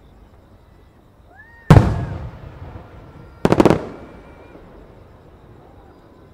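Large aerial firework shells bursting. One deep boom comes about two seconds in and fades slowly. About a second and a half later, a quick cluster of four or five sharp bangs follows.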